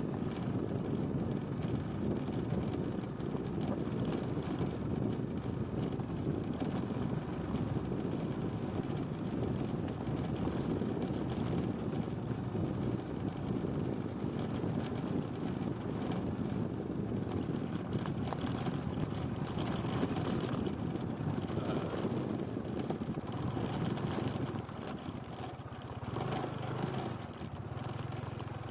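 Steady low rumble of a moving vehicle. Near the end the rumble eases and a low, steady engine hum comes through.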